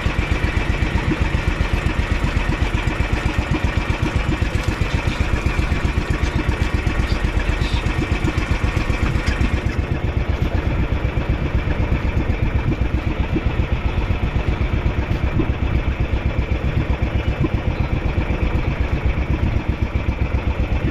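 Engine of a motorized outrigger boat running steadily, with a fast, even beat.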